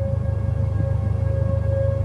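Outdoor tornado warning siren sounding one steady tone that swells and fades in loudness, over a low steady rumble.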